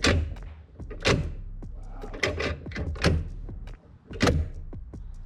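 Chevrolet Cruze M32 manual transmission's shift linkage and cables clacking as the freshly installed short-throw shifter is worked through the gears, a sharp clack about once a second over a low hum.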